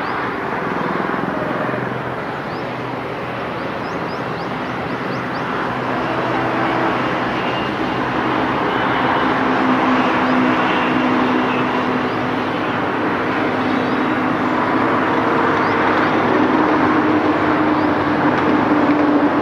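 WDP 4B diesel locomotive's EMD 16-cylinder two-stroke engine running under power as the train approaches, a steady drone that grows gradually louder.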